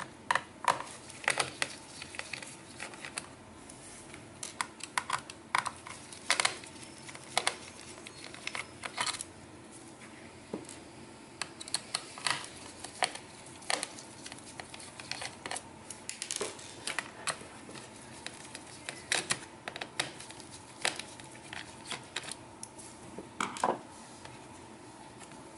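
Irregular light clicks and taps from hands handling the laptop's hard drive and its metal bracket, coming in scattered clusters.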